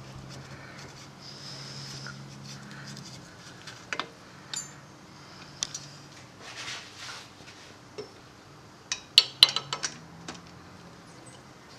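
Metal tools and fork parts being handled: scattered metallic clicks and clinks, with a quick cluster of sharp clicks about nine seconds in, over a faint steady hum.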